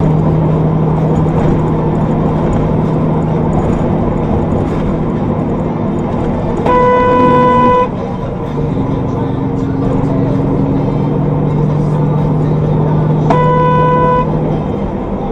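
Semi truck's horn blown twice, each blast about a second long and some six seconds apart, over the steady drone of the truck's engine and road noise in the cab. The honks are a warning at a car cutting in ahead of the truck.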